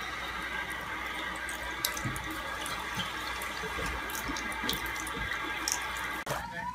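Tap water running steadily from a faucet into a ceramic sink and splashing onto a cat's fur, with a few small sharp clicks; it cuts off abruptly near the end.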